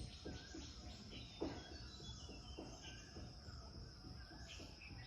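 Faint outdoor ambience of birds chirping and a steady high insect drone, with soft, irregular low thumps underneath.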